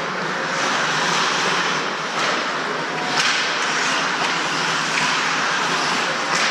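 Ice hockey play heard from the rink: a steady hiss of skates scraping the ice with a few faint clicks of sticks and puck.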